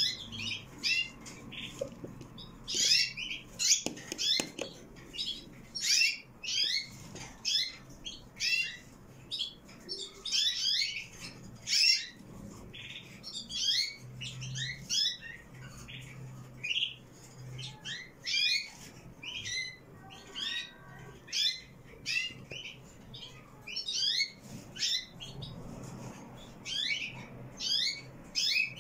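Canaries chirping: short, high, downward-sliding chirps repeated in quick irregular clusters.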